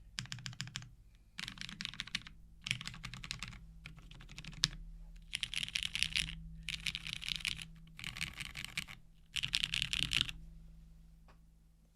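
Typing on a custom mechanical keyboard with lubed, filmed 67 g Cherry MX Black linear switches, a polypropylene full plate and GMK doubleshot ABS keycaps: bursts of rapid key clacks with short pauses between them. The typing stops about ten seconds in, followed by one lone key press.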